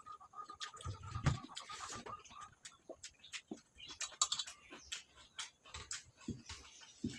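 Eating sounds of people chewing fried fish and rice: many short, wet clicks of chewing and lip smacking, with a couple of low thumps about a second in.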